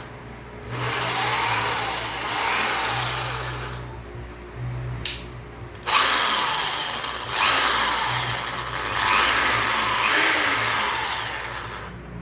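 Orion impact drill running free with no load in two long runs, the first about three seconds and the second about six, each rising and falling in pitch. There is a short click between the runs.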